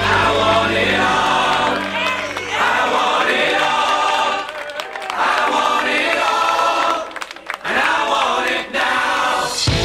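Background music: a song with several voices singing together, dipping briefly twice, near the middle and about three-quarters of the way through.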